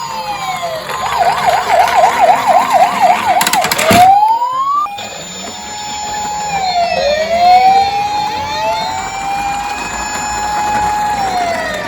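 Police car sirens sounding together: a fast yelp for about three seconds, a sharp click just before four seconds in, then slow rising and falling wails over a steady tone.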